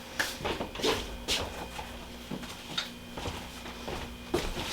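Scattered soft clicks and rustling, with a few sharper pops, as a patient is handled and positioned for a Y-strap adjustment on a chiropractic table.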